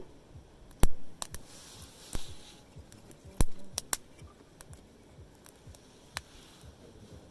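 Wood campfire crackling, with irregular sharp pops, the loudest four spread over the first four seconds, and a short hiss about two seconds in.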